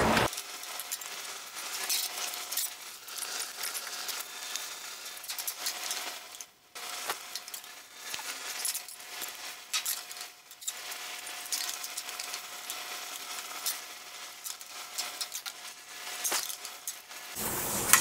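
Thin sheet-steel patch panel being pressed and worked by hand against a car's steel roof: light metallic scrapes, taps and clinks as the panel is fitted to the roof's curve.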